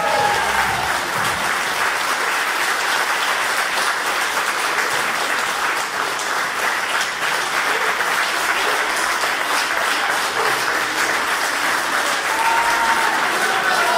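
Audience applauding steadily, a dense crackle of many hands clapping at once. Voices come in again over the clapping near the end.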